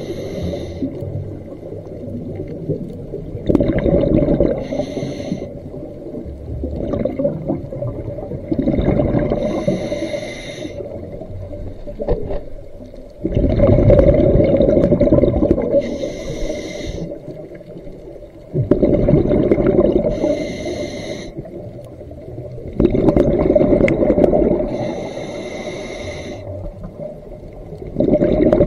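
A scuba diver breathing through a regulator underwater: a hissing inhale alternates with a loud bubbling rush of exhaled air, about one breath every five seconds, six exhales in all.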